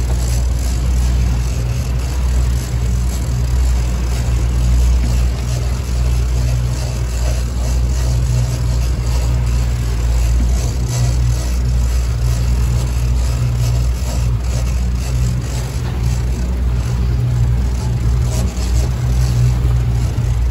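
Outboard motor running steadily as the small fishing boat moves under way, a constant low engine hum under the rushing noise of water and wake.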